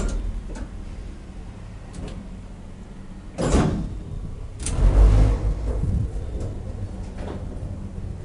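KONE hydraulic elevator's sliding doors moving: a swish about three and a half seconds in, then a click and a heavier thud about a second later, over a low steady hum.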